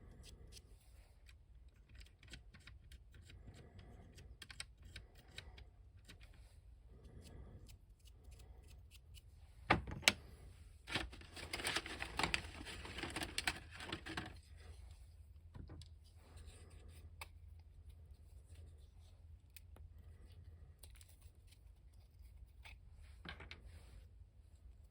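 Small clicks, taps and rustling from handling small plastic toy parts and a glue tube by hand, with a sharp click about ten seconds in followed by a few seconds of denser scratching and rustling.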